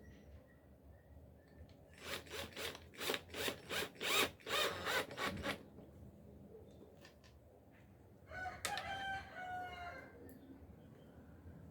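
A run of about eight quick scraping strokes of a hand tool rubbing on wood, like hand rasping or sanding. A few seconds later a rooster crows once in the background, a single call of about a second and a half that falls slightly in pitch.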